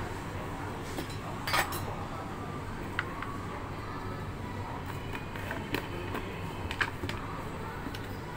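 Scattered clinks and knocks of a tea jug and containers being handled on a counter, the loudest a short clatter about a second and a half in, over a steady background hum.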